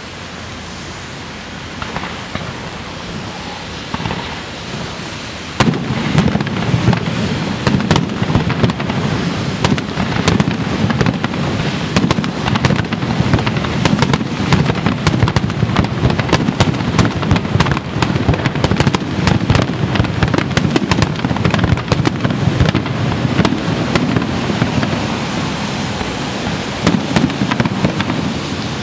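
Fireworks display: a few separate booms, then from about six seconds in a dense, continuous barrage of aerial shell bursts and crackling.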